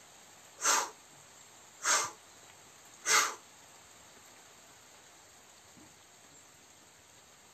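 Three sharp, forceful breaths out through the mouth, about a second and a quarter apart, in time with a repeated exercise movement. After the third there is only faint background.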